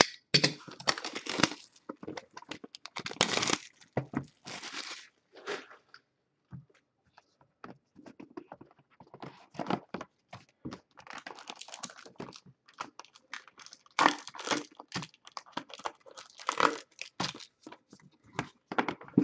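Plastic and paper packaging on a trading-card box being torn open and crinkled, with scattered rustling and clicking as the wrapping and cards are handled, and louder tearing bursts again about 14 and 16 seconds in.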